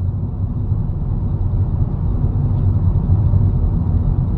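Steady low rumble of a car being driven, engine and road noise picked up by a dashcam inside the cabin.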